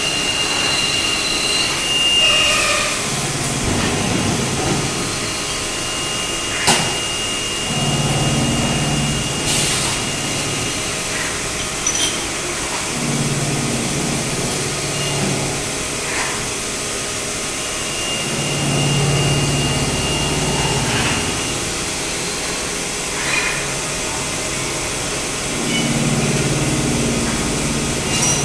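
Steady running hum of a CNC lathe with a thin, high whine that comes and goes. A few sharp metallic clicks are heard as the camshaft workpiece is handled at the chuck.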